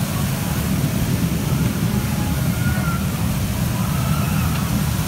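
Steady low rumble and hiss of wind buffeting a phone microphone outdoors, with faint high tones drifting through now and then.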